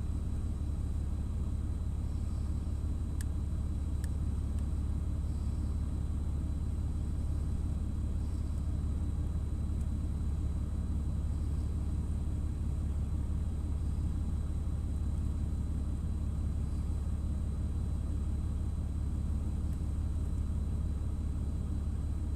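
Steady low mechanical rumble with a faint high steady whine, and two brief clicks about three and four seconds in.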